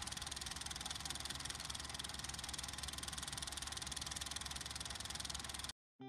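A steady machine-like running noise with a fast, even pulse and a lot of hiss, which cuts off suddenly near the end.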